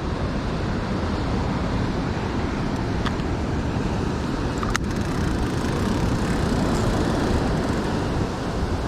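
Steady outdoor rushing noise, with a single sharp click about five seconds in.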